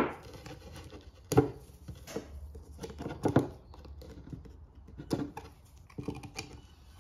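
Light, irregular metallic taps and clicks of a screwdriver on a cast piston as a seized piston ring is worked out of its carbon-fouled groove, a handful of sharp ticks spread out with quiet gaps between them.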